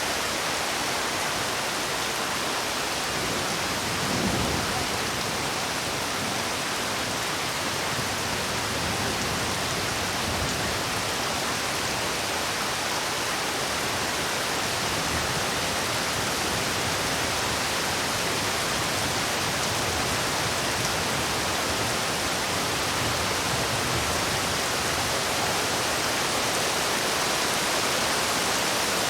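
Heavy rain falling steadily in a dense, even hiss, with a short low rumble about four seconds in.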